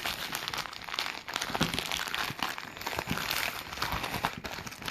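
Packaging of a headphone jack splitter crinkling and rustling in irregular crackles as it is handled and opened.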